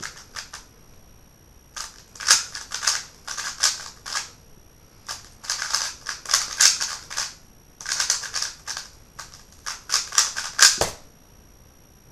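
A WeiLong GTS V2 M speedcube being turned fast during a timed solve: bursts of rapid plastic clicking and clacking with short pauses between them. Near the end there is one louder knock as the timer is stopped.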